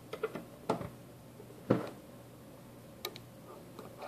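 Metal housing of a Cisco AP541N access point being handled and shifted on a wooden table during reassembly. It gives a handful of separate sharp knocks and clicks, the loudest nearly two seconds in.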